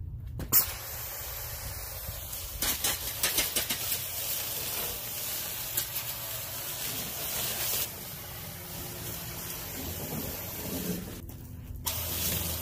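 Garden-hose foam sprayer spraying soapy water over a UTV's body panels: a steady hiss that breaks off briefly near the end, then starts again.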